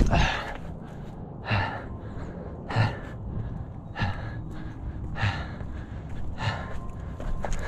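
A person breathing hard and out of breath from exertion. Six heavy breaths come about one every second and a quarter.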